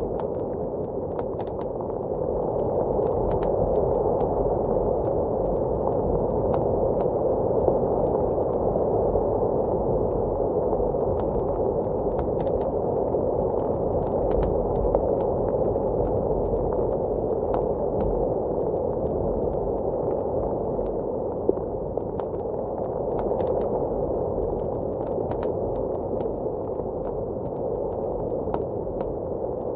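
A wood fire crackling with scattered small pops over the steady, dull rush of blizzard wind, which swells and eases a little.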